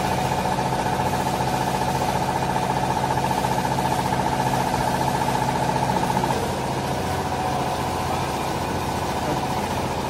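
A machine running with a steady hum made of several even tones; about six seconds in, the tone changes and the level drops slightly.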